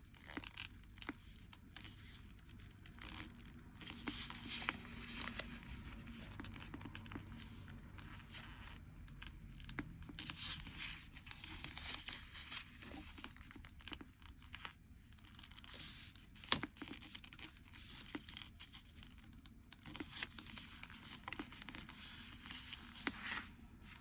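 A small sheet of origami paper being folded by hand, its corners brought in to the centre and creased down: faint, irregular paper rustling and crinkling with short, sharper crackles as the folds are pressed.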